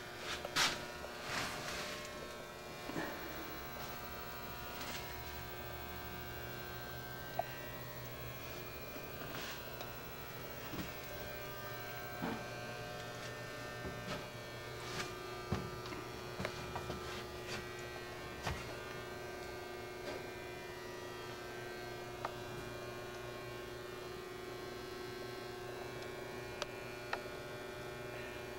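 Steady electrical buzz with many fixed tones, one of which grows stronger about halfway through, and scattered light knocks and clicks.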